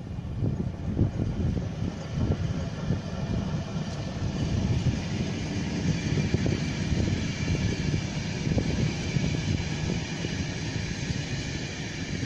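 Passenger train hauled by an electric locomotive passing close by: wheels rumbling steadily on the rails, with a higher rolling hiss building about four seconds in as the coaches go past.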